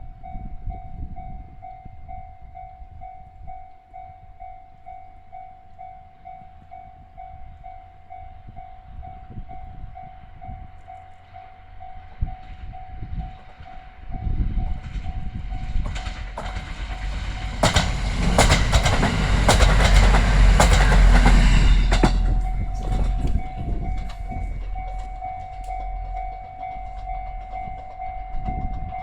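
Japanese level-crossing alarm ringing in a steady repeating beat as JR East's East i-D (KiYa E193) diesel inspection train approaches and passes about halfway through. The train's rumble and its wheels clicking over the rail joints are loudest for a few seconds, then fade while the crossing alarm keeps ringing.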